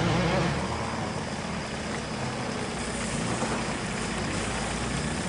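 Second-generation Toyota RAV4's engine running steadily as the SUV climbs slowly over a rough dirt trail.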